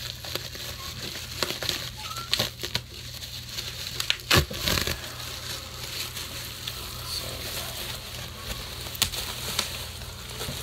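Plastic bubble wrap crinkling and rustling as it is pulled off a metal ammo can, with scattered crackles and one sharper crack about four seconds in.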